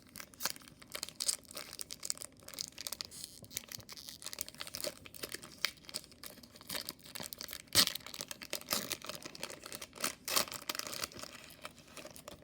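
Foil wrapper of a Pokémon card booster pack crinkling and tearing as it is opened, with irregular crackles and handling of the cards; one sharper, louder crackle about eight seconds in.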